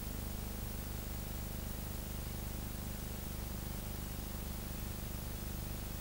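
Steady low hum with an even hiss over it, unchanging throughout: the background noise of an old film soundtrack, with no action sounds.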